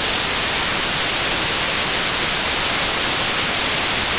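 Loud, steady static hiss, an even white noise on the audio track with no other sound standing out of it.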